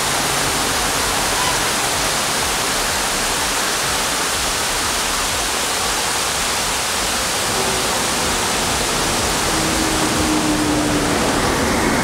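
Mountain stream water rushing steadily over rocks and spilling through small cascades between boulders.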